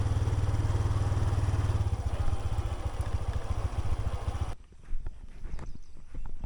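Motorcycle engine running steadily, then cutting off abruptly about four and a half seconds in, followed by faint scattered clicks.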